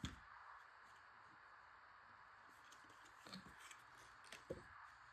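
Near silence: faint room hiss with a few soft clicks and taps of handling, the clearest at the start and twice near the end.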